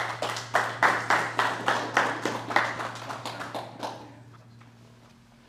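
People clapping in applause, a rapid run of handclaps that thins out and stops about four seconds in.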